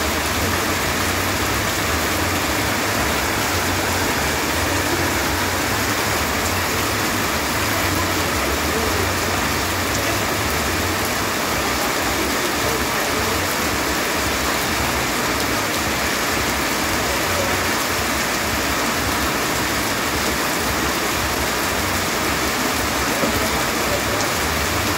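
Steady rain falling, an even, unbroken hiss of water.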